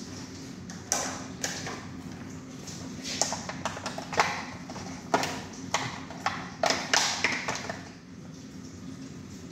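Sharp taps and clicks of a small jar and herb container being handled on a kitchen counter, about a dozen spread over several seconds, with a steady low hum underneath.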